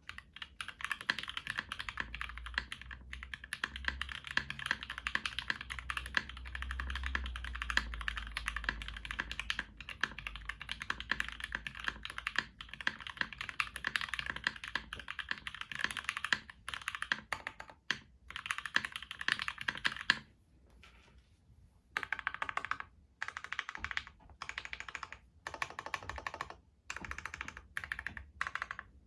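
Mechanical keyboard with Gateron Ink switches on a UHMWPE plate and GMK keycaps being typed on fast and steadily. The typing stops for about two seconds after roughly two-thirds of the way through, then comes back in short bursts with little gaps between them.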